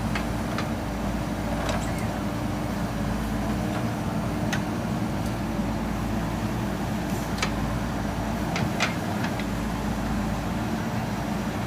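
Diesel engine of a JCB 3DX backhoe loader running steadily under work, with a dozen or so sharp clanks scattered through it.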